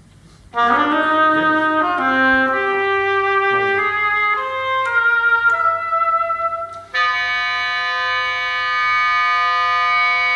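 Recorded instrumental music starting suddenly about half a second in: a string of sustained chords changing every half second or so. From about seven seconds in comes one long held chord, which cuts off abruptly near the end.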